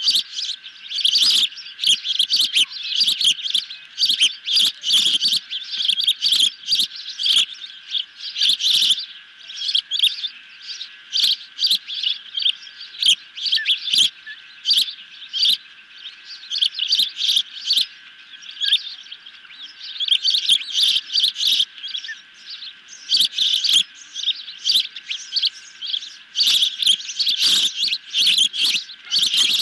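Juvenile ospreys calling: runs of rapid, high, sharp chirps that come in bursts with brief lulls.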